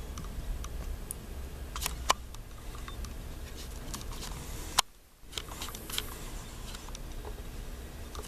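Handling noise from a handheld camera being held and adjusted to focus: scattered light clicks and rubs over a steady low hum. About five seconds in there is a sharper click, then a moment of near silence.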